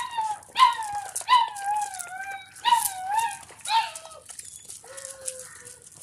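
Doberman puppies whining: a run of short, high whines that bend and fall in pitch, about five in the first four seconds, then a fainter, lower whine near the end.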